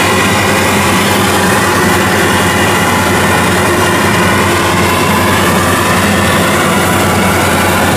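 WD115 Pro rice combine harvester running steadily under load as it cuts and threshes rice: a loud, constant machine sound made of several steady tones over a dense rumble.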